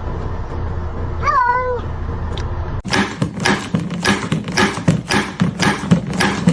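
A cat gives one short meow, rising then falling, about a second in. From about three seconds in comes a fast run of short, clicky, noisy sounds, several a second, louder than the meow.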